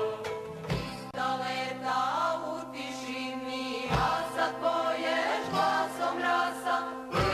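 Background choral music: a choir chanting a slowly moving melody over a steady held low drone note.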